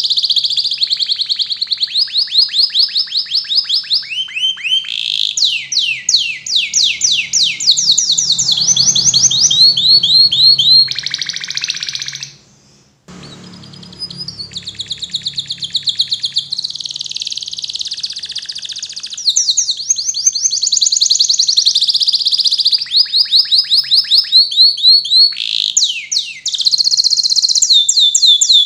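Domestic canary singing a long song of fast trills. Each phrase is a quick run of the same note repeated, and the pitch jumps from one phrase to the next. The song breaks off for about a second near the middle.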